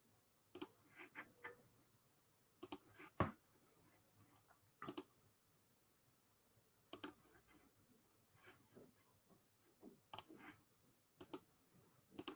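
Computer mouse clicking: about ten short, faint clicks at irregular intervals, many in quick pairs, over near silence.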